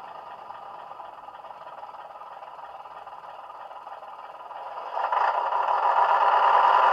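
Recorded Class 117 diesel multiple unit engine sound from a DCC sound decoder, played through the model's small speakers: a steady diesel idle that gets much louder about five seconds in and stays louder.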